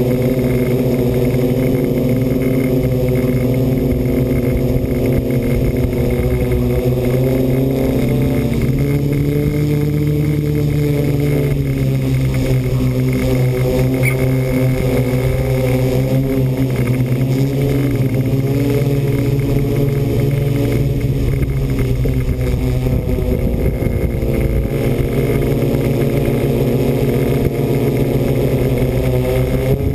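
Electric motors and propellers of an RC multicopter, heard close from its own on-board camera: a steady loud hum whose pitch rises and falls a little as the craft manoeuvres.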